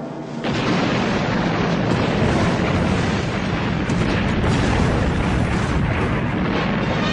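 Explosion sound effect for an oil refinery blowing up: the blast comes in about half a second in, then several seconds of dense, steady explosion noise.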